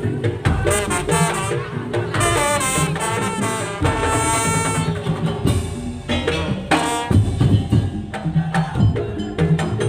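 Madurese tong-tong (daul) percussion ensemble playing loud music: rhythmic drums and percussion under a reedy, brass-like melody line.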